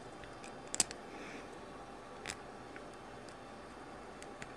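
Faint clicks and handling of small plastic action-figure parts as an attachment is pushed into a shoulder piece: a sharper double click about a second in, another click a little past the middle, and a few tiny ticks near the end.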